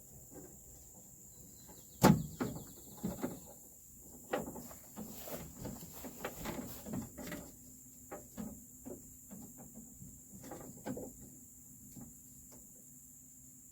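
Metal clicks and knocks from inside a Volvo VNL truck door as the door-lock rods are worked back onto their clips: one sharp knock about two seconds in, then a long run of lighter taps and rattles that fades out.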